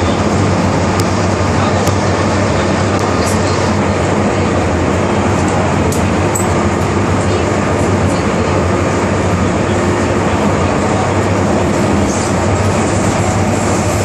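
MTR Kwun Tong line train running at a steady speed between stations: a constant rail rumble with a low, even hum.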